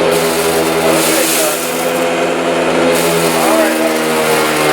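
Eureka Boss SmartVac upright vacuum cleaner running at full speed: a steady motor hum with a rush of air.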